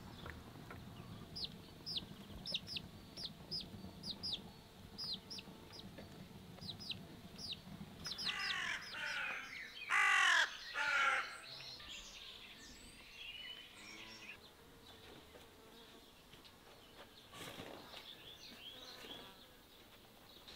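Chicken calls: a chick peeping repeatedly in short, high, falling notes for the first several seconds, then loud, falling chicken calls from about eight to eleven seconds in, with fainter bird calls after.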